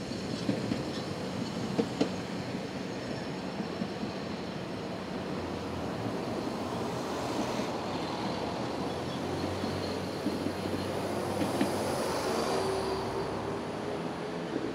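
A 750 mm narrow-gauge steam train moving away along the track: a steady rumble of its coaches, with a few sharp clicks from the wheels in the first couple of seconds. A thin, slowly falling squeal from the wheels comes in about two-thirds of the way through.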